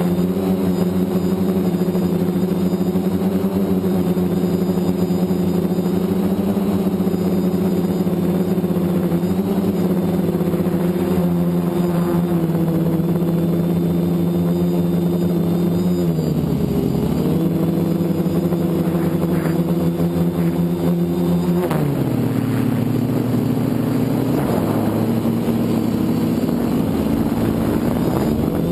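Multirotor drone's electric motors and propellers buzzing steadily. The pitch drops briefly about sixteen seconds in and again about twenty-two seconds in, then climbs back as the throttle changes.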